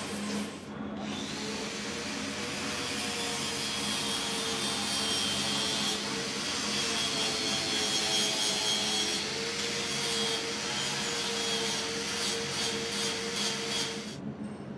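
Angle grinder running against a car's bare metal body panel: a steady whine that wavers slightly in pitch over the hiss of the disc on the metal. It cuts in about a second in and stops suddenly near the end.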